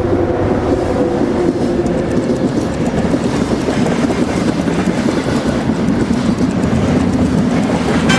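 Train running along the track: a steady rumble with rapid, regular clicking of the wheels over the rail joints.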